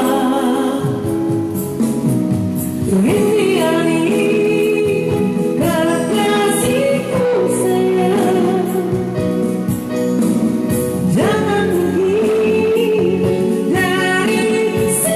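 A man singing an old Indonesian pop song in a high voice, holding long notes with a wavering vibrato over instrumental accompaniment.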